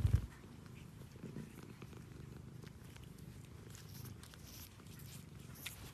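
Domestic cat purring steadily close up, with a low thump right at the start.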